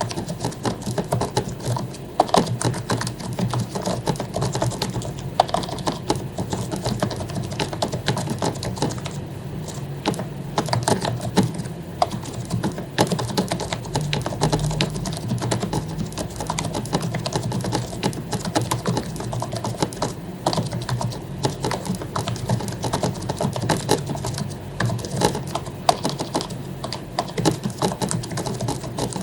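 Continuous fast typing on an HP membrane keyboard, its keycaps lubricated: a dense, irregular stream of soft key clicks with no pauses.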